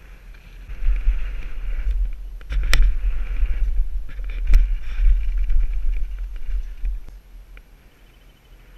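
Wind buffeting the microphone of a mountain bike on the move, with tyre and trail noise and two sharp knocks, about two seconds apart, from the bike jolting over the ground. It grows loud about a second in and eases off near the end.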